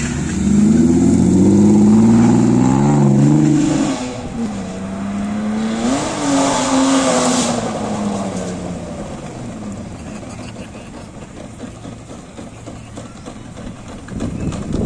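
Car engine revving hard while drifting, its pitch wobbling up and down as the throttle is worked, loudest in the first four seconds. About six seconds in comes a second rising and falling rev with a hiss of tyre squeal, then the sound fades and rises again near the end.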